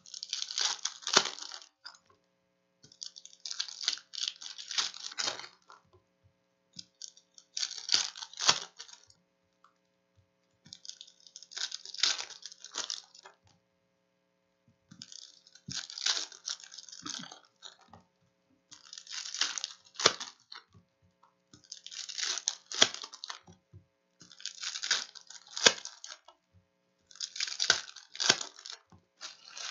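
Foil trading-card packs being torn open and crinkled by hand, one pack after another: about nine short bursts of crackling foil, every three to four seconds.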